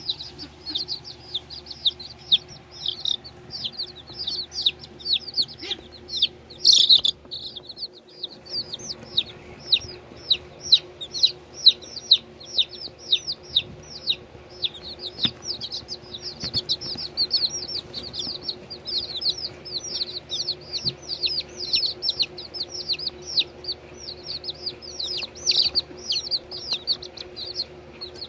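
Baby chicks peeping continuously: many short, high, downward-sliding peeps, several a second, with a louder burst about seven seconds in. A steady low hum runs underneath.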